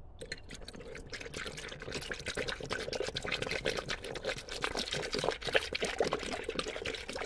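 Liquid poured from a plastic bottle in a steady stream into a coolant-filling funnel of water, splashing and gurgling. It starts abruptly and grows louder through the pour.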